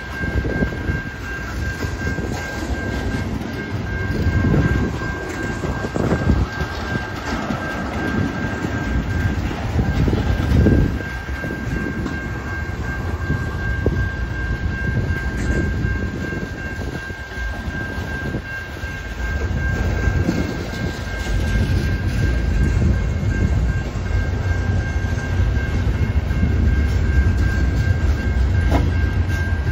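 Loaded freight train of tank cars and covered hoppers rolling slowly past at about 5 mph. Its wheels give a steady low rumble on the rail, with scattered knocks and clicks as the trucks pass over joints, under a steady high-pitched tone. The rumble grows heavier in the second half.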